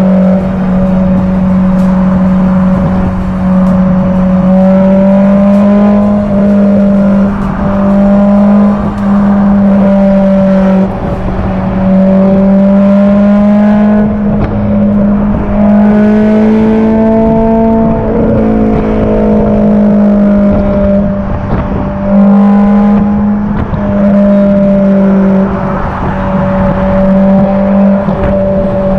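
Honda S2000's four-cylinder engine pulling at a steady pitch on the motorway, easing off and back on a few times, with wind and road noise in the open-top cabin.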